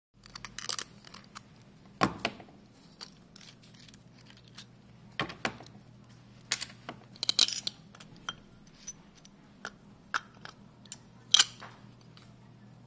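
Metal clicks and clinks as pliers and fingers work the retaining nut off a solenoid valve's coil, with the small nut and washer knocking onto the desk; the loudest knocks come about two seconds in and near the end. A faint steady hum runs underneath.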